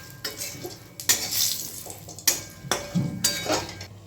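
A spatula scraping and knocking against a kadai in a series of strokes, stirring cumin seeds, dried red chillies and a bay leaf being tempered in hot oil, with a light sizzle underneath.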